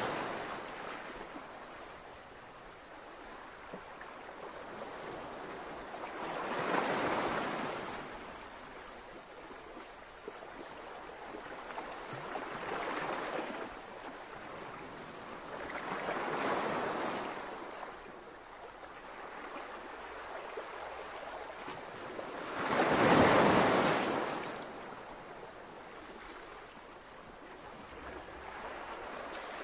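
Waves washing in, a rushing noise that swells and fades in long surges about every four to seven seconds, the loudest a little before the last quarter.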